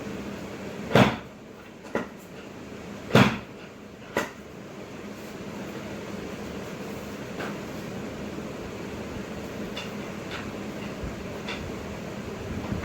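Thumps on a chiropractic treatment table during adjustments: two loud knocks about two seconds apart, each followed a second later by a fainter knock, then a few light ticks, over a steady air-conditioner hum.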